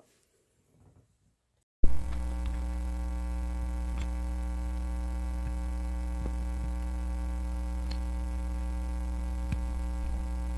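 Steady electrical mains hum, rich in overtones, that cuts in abruptly about two seconds in after near silence, with a few faint clicks over it.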